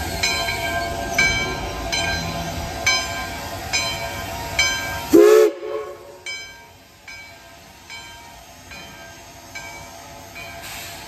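Steam locomotive bell on Baldwin 0-6-0 No. 58 ringing steadily, nearly two strokes a second, as the engine moves slowly. In the first half it sounds over a loud hiss and rumble of steam. About five seconds in there is a brief low tone, then the hiss and rumble drop away and the bell rings on alone.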